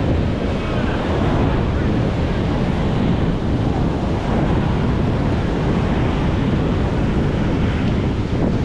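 Ocean surf washing onto the beach, a steady heavy rush, with wind buffeting the microphone.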